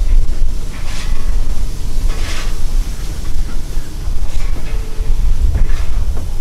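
Harz narrow-gauge 2-10-2T steam locomotive 99 7241-5 rolling slowly past, hissing steam in puffs every second or so over a steady rumble, with heavy wind on the microphone.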